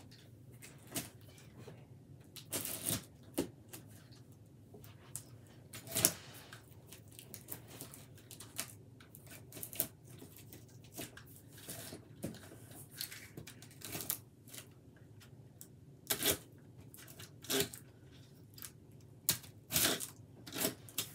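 Clear packing tape being ripped off a cardboard shipping box and the cardboard flaps pulled open and handled: a series of short, sharp rips and scrapes, the loudest about six seconds in.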